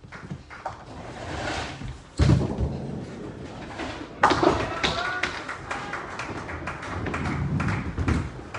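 Ninepin bowling balls thudding onto the lane and rolling with a low rumble: one heavy thud about two seconds in, a sharp crash with a brief shout about four seconds in, and another ball rumbling down a lane near the end.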